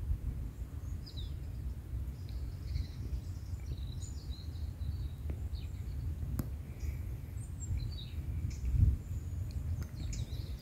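Small birds chirping now and then in open scrubland, over a steady low rumble of wind on the microphone.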